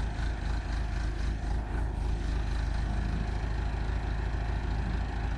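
Backhoe engine running steadily at idle, a low, even rumble.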